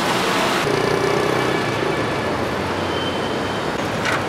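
Steady city traffic noise, an even wash of road sound with no clear single vehicle. Its tone changes abruptly about half a second in, and there is a short rustle near the end.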